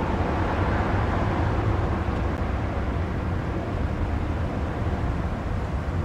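Steady low rumbling noise with no distinct events, heaviest in the bass.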